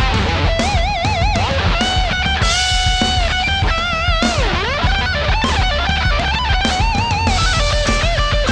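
Electric guitar through a Suhr Riot high-gain distortion pedal playing a lead solo: sustained notes with wide vibrato and bends, and a swooping dip in pitch about four and a half seconds in, over a fast, driving low rhythm.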